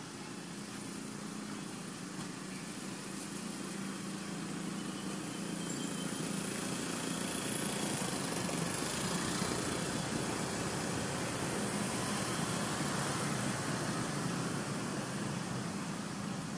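A motor vehicle's engine running nearby: a steady low hum mixed with outdoor noise, growing louder toward the middle and easing slightly near the end.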